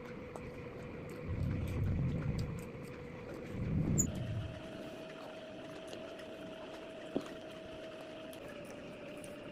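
Close-up eating sounds: chewing in two low swells with small mouth clicks, over a faint steady hum that steps up slightly in pitch about four seconds in.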